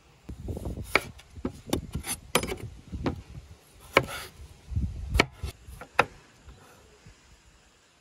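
Chef's knife slicing a raw potato on a wooden cutting board: about a dozen sharp knocks of the blade meeting the board, with dull thuds, stopping about six seconds in.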